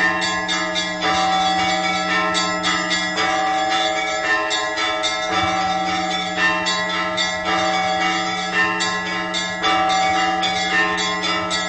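Orthodox church bells ringing a festive Easter peal: many bells struck in quick succession over the steady hum of a deep bell. A new round of strikes comes about every two seconds.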